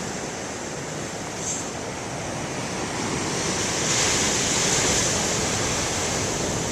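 Large ocean surf rushing and breaking on a beach, swelling louder about three to four seconds in.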